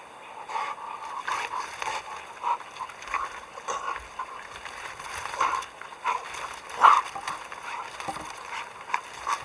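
An animal making short calls in an irregular series, about one or two a second, with the loudest call about seven seconds in.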